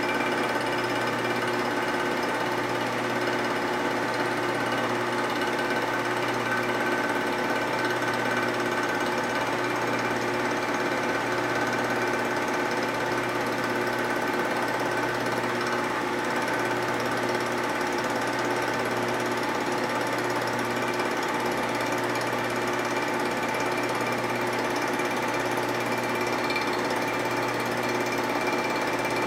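Vertical milling machine running, its end mill taking a light cut on an aluminium Harley-Davidson knucklehead engine case as a rotary table is cranked round by hand. The sound is steady and unbroken, with a constant whine.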